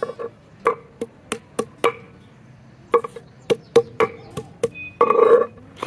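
Chopping on a cutting board during food preparation: about a dozen quick, uneven knocks in two runs, each with a short ringing note. A longer, louder sound comes near the end.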